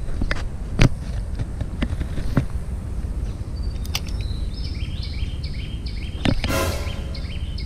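Sharp clicks and knocks from handling a spinning rod and reel during a cast and retrieve, over a low rumble of handling noise, with a brief rasp about six and a half seconds in. From about four seconds in, a high two-note chirping call repeats about three times a second.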